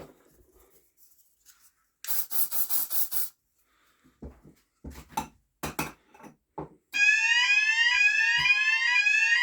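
Smoke-detector test aerosol sprayed in a quick series of hissing puffs, then a few handling clicks. About seven seconds in, the Hochiki smoke detector trips and two fire-alarm sounders, a Cranford Controls Vantage and a Viper, start together, loud and continuous: one repeats rising sweeps, the other switches between a high and a low steady tone.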